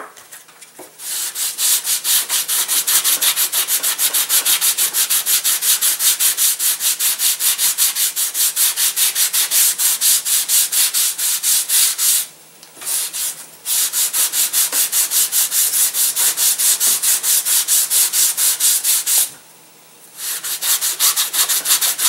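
Sandpaper rubbed quickly back and forth over a small model glider wing, about three strokes a second, thinning and blending the wing to take off weight. The strokes stop briefly twice, a little past halfway and again near the end.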